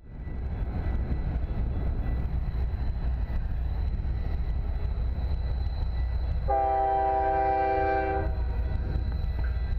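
BNSF diesel locomotive's air horn sounding one blast of just under two seconds, several notes at once, about six and a half seconds in, over a steady low rumble.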